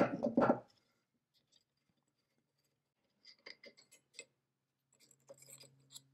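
Small clicks, scrapes and rattles of a ceramic crucible being handled and worked out of the metal cradle of an antique centrifugal dental casting machine. The loudest is a short scrape or clatter at the very start; a few light clicks follow about three seconds in, and more rattling near the end.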